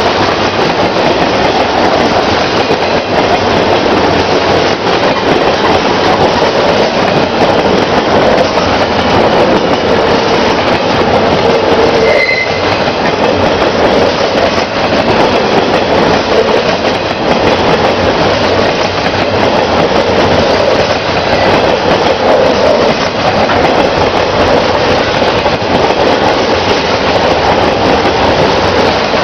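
Double-stack well cars of a long freight container train rolling past, a loud steady rumble and rattle of steel wheels on rail. A short high wheel squeal comes partway through.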